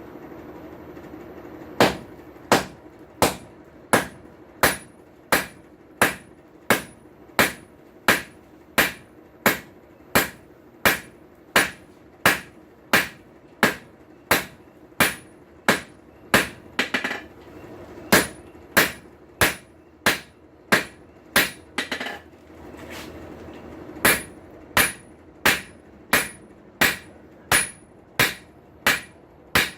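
Blacksmith's hammer striking hot steel on an anvil in a steady rhythm of about one and a half blows a second, each blow with a short metallic ring, while forging the boss (pivot point) of a blacksmith's tongs blank. The hammering starts about two seconds in and pauses briefly twice, around the middle and again about two-thirds of the way through.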